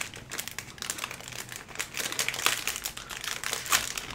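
An ice cream bar's wrapper crinkling and crackling in a rapid, irregular run as it is handled and peeled open.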